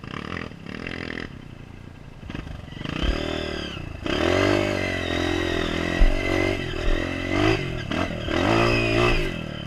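Dirt bike engine revving under load on a steep rocky climb, its pitch rising and falling with the throttle. It is quieter for the first few seconds, then loud from about four seconds in, with a few knocks from the bike over the rough ground.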